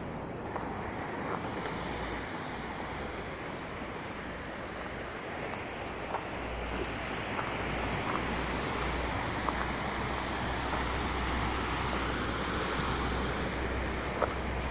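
Wind rumbling on the microphone over a steady rush of sea and small waves against the rocks, getting a little louder about halfway through. Now and then there is a faint click of a footstep on gravel.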